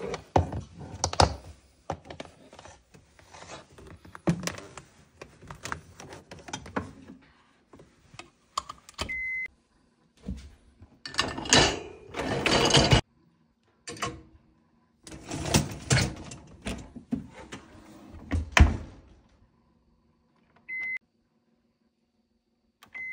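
Clicks, knocks and rattles of plastic hoses and fittings being handled, then a dense clatter of the dishwasher's wire dish rack. Short electronic beeps from a dishwasher's control panel sound once around nine seconds in and twice near the end.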